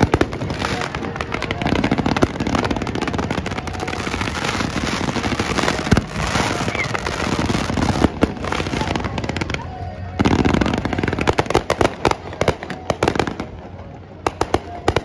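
Fireworks display: a dense, rapid crackling and popping of shells bursting overhead. Near the end it thins to a few scattered pops and fades.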